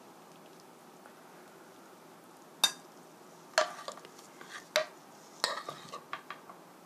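A metal spoon and wooden spatula scooping food from a frying pan onto a ceramic plate. After a quiet start, four sharp clinks of the utensils against the pan and plate come about a second apart, with softer taps between and after.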